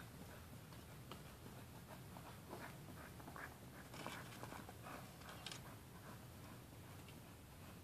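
Faint rustling and scratching with scattered light clicks, a little busier around the middle: small handling noises of gear, clothing or leaves.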